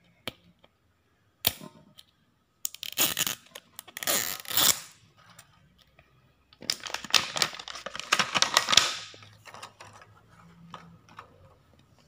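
Crinkly plastic wrapper of a toy ball crackling and tearing as it is peeled off by hand: a couple of sharp clicks, then two long spells of crackling with faint ticks after.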